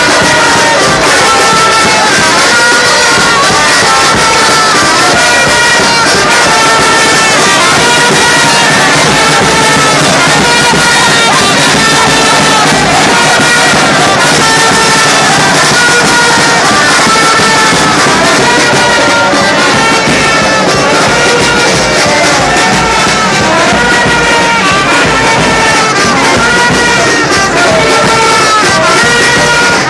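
Street brass band of trumpets with a drum, playing a loud repeating tune.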